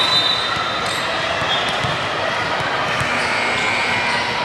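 A volleyball smacked on the serve just at the start, then a few dull thuds of balls being hit and some high squeaks. All of it sits over the steady echoing din of players and spectators in a large gym.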